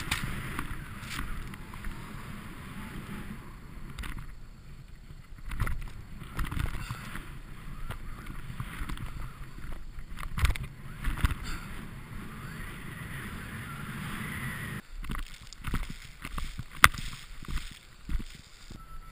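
Snowboard carving through deep powder: a steady rush and hiss of snow spraying off the board. Around fifteen seconds in the rush drops away into scattered knocks, with one sharp click a little later.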